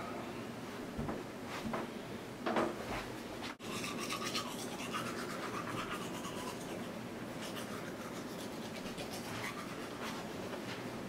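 Toothbrush scrubbing teeth in quick, scratchy back-and-forth strokes from about four seconds in, after a few soft thumps of movement.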